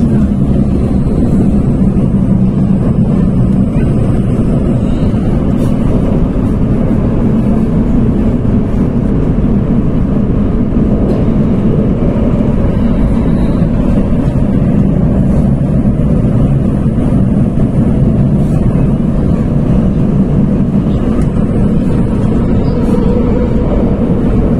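Singapore MRT Downtown Line train running through a tunnel, heard from inside the carriage: a loud, steady low rumble that holds unchanged throughout.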